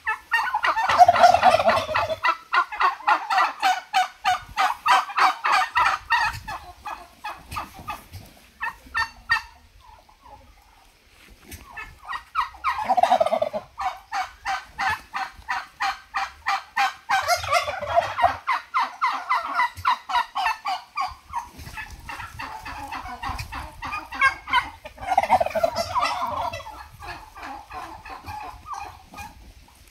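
Farm turkeys gobbling in repeated bouts of rapid rattling calls, with a short lull about a third of the way through before the gobbling starts up again.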